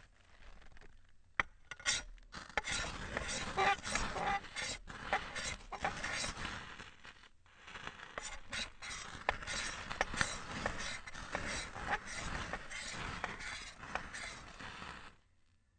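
Ferrocerium rod scraped hard again and again, a rapid run of rasping strokes that shower sparks onto wood shavings. The strokes stop shortly before the end.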